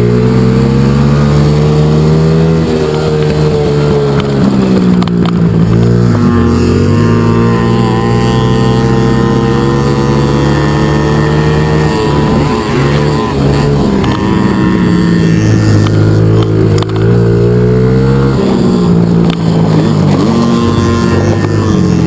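Mini-bike engine heard from on board while riding, its pitch rising and falling as the throttle is opened and closed, dipping several times as the rider slows for turns.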